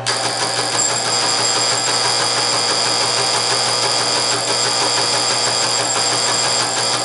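Teletype Model 19 transmitter-distributor running under its electric motor: a fast, dense mechanical clatter with a steady high whine. It starts suddenly as it is switched on and cuts off abruptly at the end. This is its first power-up after a full teardown and rebuild, and it runs as it should.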